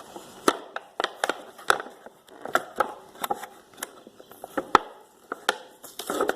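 Irregular sharp clicks and knocks of hard parts being handled and set down, one or two a second.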